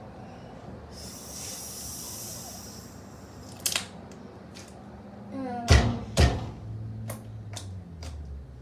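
Slime being handled by hand: a short hiss, then scattered sticky clicks and pops, with two heavy thumps a little over halfway through.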